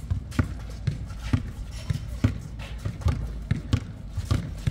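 Basketball players' sneakers thudding and scuffing on an outdoor hard court as they run, with the basketball bouncing; a string of short, uneven thuds about two a second.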